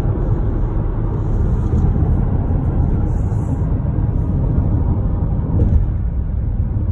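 Steady low rumble of a car moving along a road, heard inside its cabin: road and engine noise while cruising.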